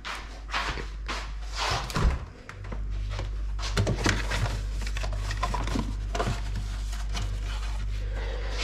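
Rummaging in an open refrigerator: light clicks and knocks of bottles and containers being handled. Under them runs a steady low hum that sets in about two and a half seconds in.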